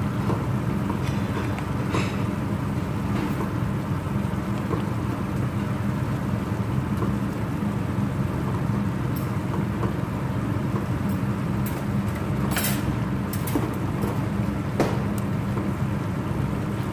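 A spatula stirring a thickening sweet-and-sour vegetable sauce in a pan, with a few scattered clicks and scrapes against the pan over a steady low kitchen hum.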